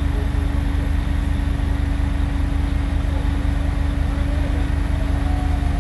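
A large engine of the demolition machinery running steadily at one speed, a low unchanging drone with a constant hum.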